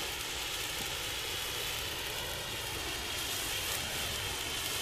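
Two hand-held blue bengal flares from Jorge burning with a steady hiss.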